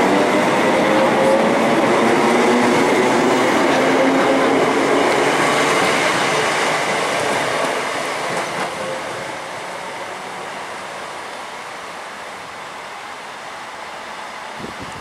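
BREL Class 318 electric multiple unit pulling away, its traction motors giving a faint rising whine over the rumble and clatter of the wheels on the rails. The sound fades steadily from about halfway as the train draws away.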